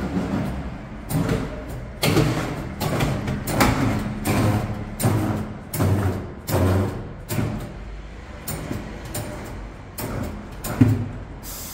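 Tyre-changing machine fitting a low-profile tyre onto an alloy rim: the turntable running while the bead rubs and knocks over the mounting head, about twice a second.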